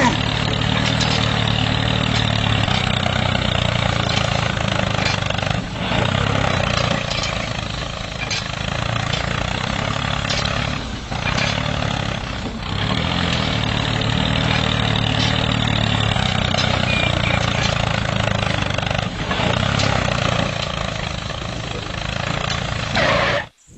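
Miniature model tractor running steadily with an even, engine-like drone as it tows a grader blade through sand. The sound dips briefly a few times and cuts off suddenly just before the end.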